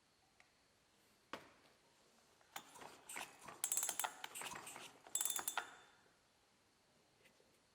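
Tools and metal parts working on a chainsaw during reassembly: a single click, then about three seconds of rapid mechanical clicking and rattling.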